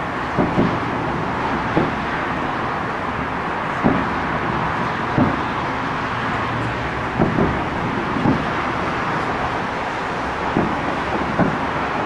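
Distant fireworks bursting: about ten sharp bangs at irregular intervals, over a steady hum of city and traffic noise.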